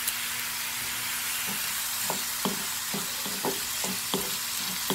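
Chopped shallots, ginger, garlic and curry leaves sizzling in hot coconut oil in an iron kadai. From about a second and a half in, a spatula stirs them, scraping the pan two or three times a second.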